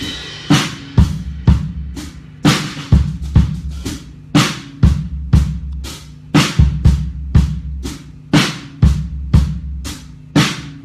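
Drum kit played in a steady kick-and-snare groove, about two hits a second, during a sound check. The kick drum sounds high-tuned.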